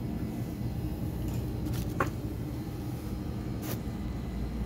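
Steady low background rumble, with a few light clicks and one sharper clink about two seconds in as a small glass jar is set down on a tiled floor.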